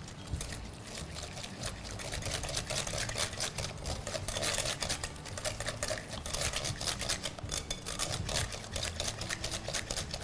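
A whisk beating a wet yogurt-and-tahini marinade in a bowl: rapid clicking and scraping of the wires against the bowl, light at first and getting busier after about two seconds.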